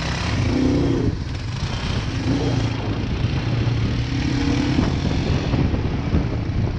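ATV engines running under way, heard from the rider's seat: a steady low rumble, with the engine note rising briefly a few times.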